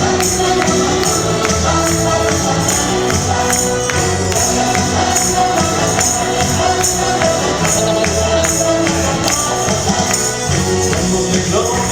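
Upbeat Christian praise music in a mostly instrumental passage, with a tambourine jingling in a steady rhythm on the beat.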